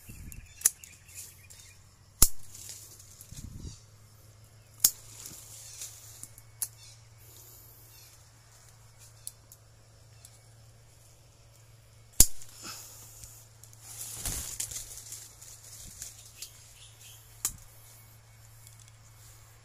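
Hand pruning shears snipping small durian branches: about half a dozen sharp snips spread out over the stretch, with leafy branches rustling as they are handled and pulled away between cuts.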